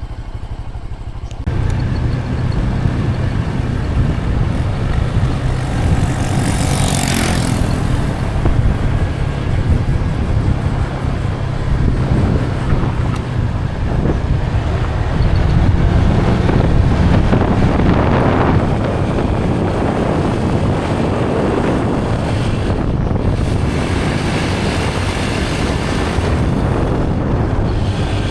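Motor vehicle driving along a road, with steady engine rumble and road and wind noise that come up loudly about a second and a half in. A brief whooshing sweep comes about six seconds in.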